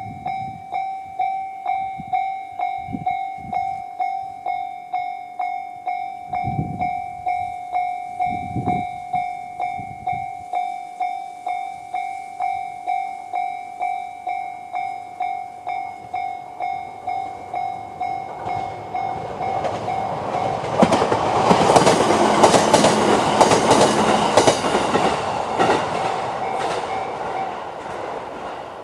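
Japanese level-crossing alarm with the JR standard electronic tone, ringing about two times a second. Partway through, a JR E131-series electric train's running and wheel noise swells loud as it passes. The alarm stops near the end while the train noise fades.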